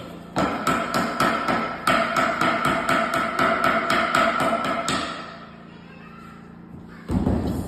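A handheld power tool running with a steady whine and a rapid regular knocking, about five knocks a second, for about four and a half seconds. A short burst of noise follows near the end.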